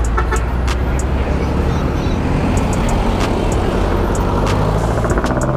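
Motor vehicle engines running at the roadside, a steady low rumble, with a rise in engine pitch near the end as a vehicle pulls away or passes.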